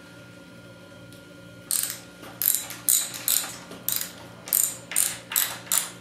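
Ratchet wrench clicking in short quick strokes, about three a second, starting nearly two seconds in, as the pinch bolts on a motorcycle's lower triple tree are loosened.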